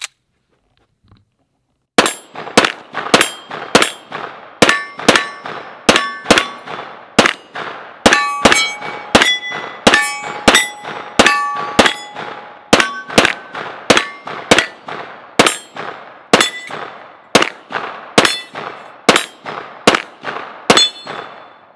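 Taran Tactical STI Combat Master 2011 9mm pistol firing a steady string of several dozen shots, about two a second, starting about two seconds in. Many shots are followed by the clang and ring of hit steel targets.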